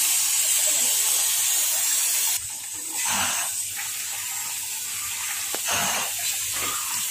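Acid draining from an upturned lead-acid car battery into a plastic crate, a faint trickling and splashing under a steady hiss that drops away sharply about two and a half seconds in.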